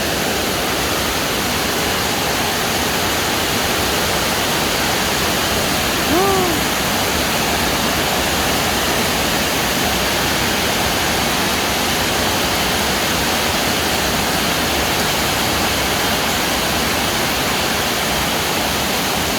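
Steady rushing of fast-flowing floodwater, with a short voice call about six seconds in.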